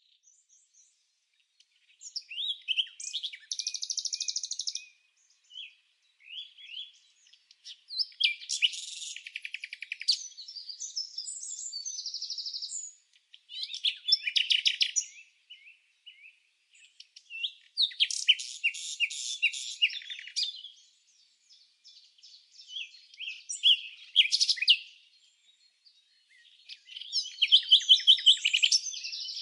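Bird song: phrases of quick high chirps and trills, each lasting a couple of seconds, repeating with short pauses between them.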